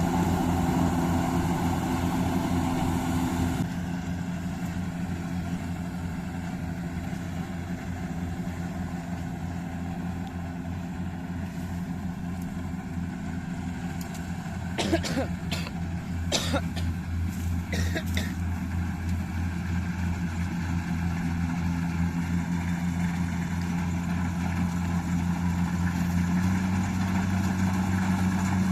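Kubota DC-60 rice combine harvester's diesel engine running steadily with a low, even drone. About halfway through a few short sharp knocks sound over it, and the engine note rises slightly near the end.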